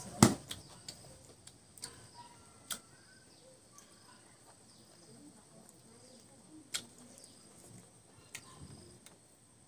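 Close-up eating sounds of a man chewing rice and mutton curry: a handful of sharp mouth clicks and lip smacks, the loudest just after the start, with quiet chewing between them. Faint bird chirps sound in the background.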